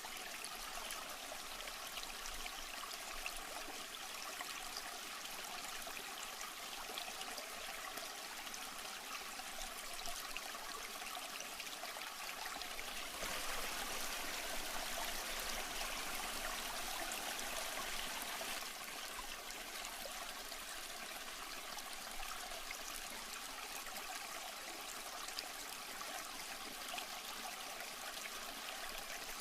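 Steady trickling and splashing of aquarium water, the kind made by a filter's return flow. It gets a little louder for about five seconds in the middle.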